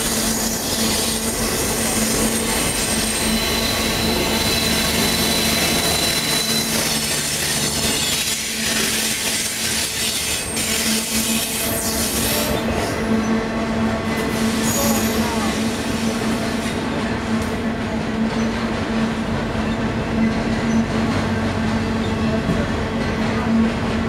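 Freight cars of an intermodal train rolling past: a steady, loud rumble and clatter of steel wheels on rail, with thin squealing tones from the wheels. The highest hiss eases off about halfway through.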